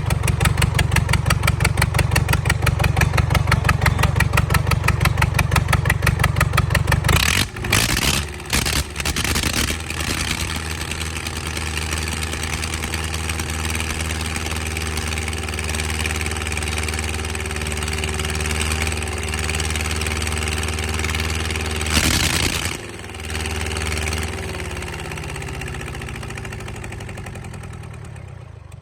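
Rebuilt four-cylinder engine of an aircraft pushback tractor running after its overhaul, with a fast, even pulse. About 7 seconds in it changes speed and settles into a steadier run, gives a short louder surge around 22 seconds in, and grows quieter towards the end.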